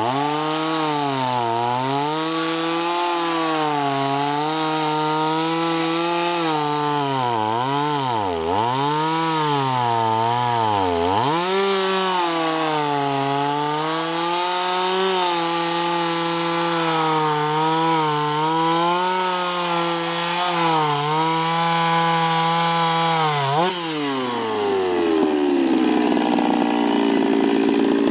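Stihl 026 chainsaw with a home-modified, opened-up muffler cutting hard crotch wood at full throttle. The engine pitch dips hard several times under load, typical of a chain that may be a little dull. Near the end the throttle is released and the revs fall away.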